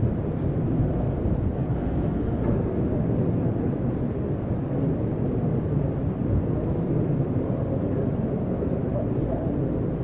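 Indistinct hubbub of a crowd milling about, over a steady low rumble.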